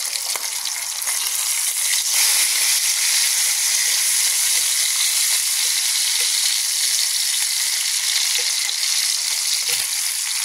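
Bacon strips frying in hot grease in a skillet: a steady sizzle that grows louder about two seconds in, with a few faint pops.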